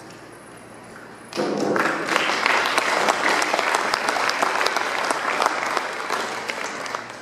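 Audience applauding. The applause breaks out about a second and a half in, as many quick claps, and dies down near the end.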